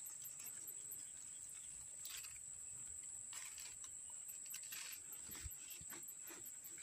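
Insects buzzing in a steady high whine, with a faster, evenly pulsing chirp above it. A few brief soft rustles about two, three and a half and five seconds in.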